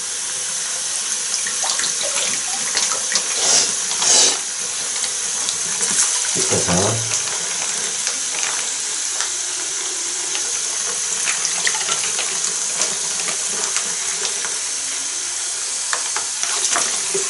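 Bathroom washbasin tap running steadily into standing water in the bowl: the basin is filling because its drain is clogged.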